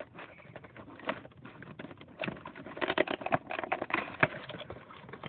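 Irregular clicks, taps and rustling, busiest in the second half, from hands handling a plastic action figure and its packaging.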